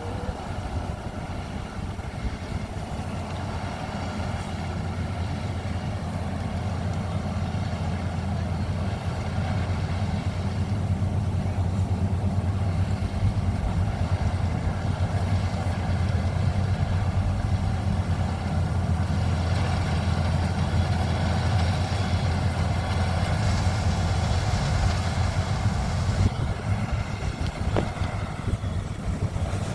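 Maxxi Bimo 102 rice combine harvester's engine running steadily, growing louder over the first ten seconds and then holding.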